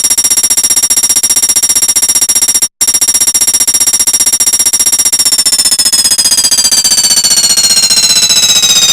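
Front-load washing machine running with an empty drum: a fast, steady hammering rattle with a high whine over it. About a second past the halfway point the whine begins to fall steadily in pitch, and there is a brief cut-out near a third of the way in.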